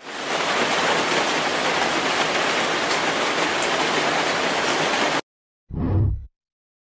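Steady heavy rain, an even hiss that cuts off suddenly about five seconds in. Near the end comes a short, deep thump.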